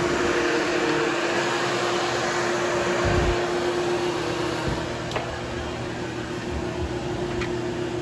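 Hoover Hushtone vacuum cleaner's motor running steadily with a constant hum while grooming the carpet pile, with a couple of soft low thumps, getting a little quieter about five seconds in.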